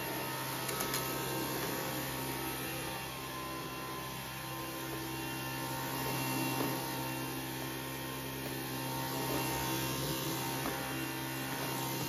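Dyson V15 Detect cordless stick vacuum running at a steady pitch while its motorised brush head is pushed back and forth over a tiled floor.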